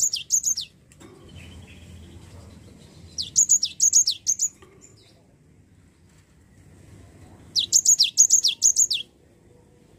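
Cinereous tit (gelatik batu) singing in three bursts of sharp, quickly falling whistled notes: one at the start, one about three seconds in, and one near the end.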